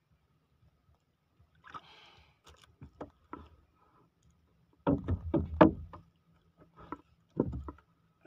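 Knocks and thumps on the wooden hull of a small outrigger canoe: a loud cluster of them about five seconds in and a few more near the end, after a few faint clicks.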